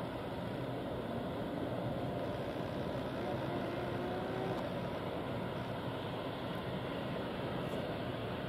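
Distant, steady drone of an ANA Bombardier Dash 8-400's twin turboprop engines as the aircraft moves along the runway, with a faint tone rising slightly around the middle.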